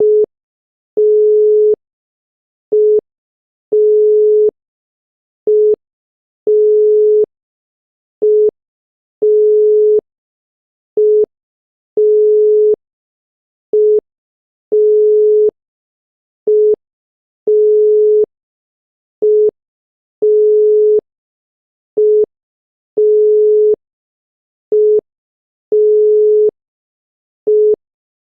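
Obsolete Bulgarian telephone dial tone, a single steady 425 Hz tone: a short beep, then a longer one, repeating over and over. It signals that the line is ready for dialling.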